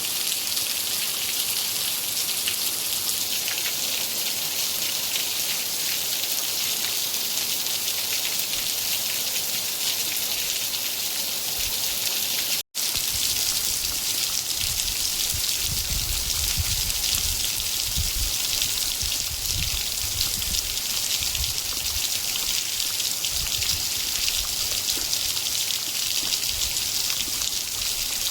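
Steady rain falling, an even hiss of many drops, with a split-second cut to silence about halfway through.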